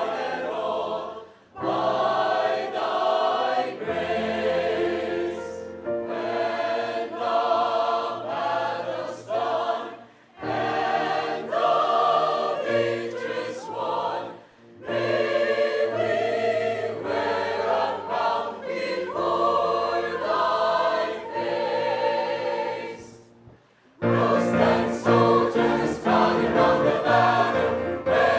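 A choir singing a hymn, in phrases with short breaths between them.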